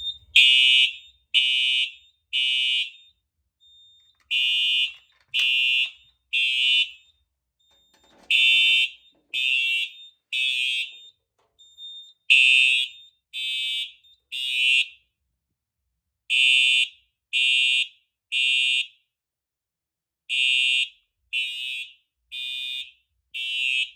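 Simplex 4906-9128 ceiling-mount fire alarm horn sounding the temporal-three evacuation pattern on a Simplex 4006 panel in alarm. The horn gives groups of three short, loud buzzing blasts about a second apart, with a pause of about a second and a half between groups.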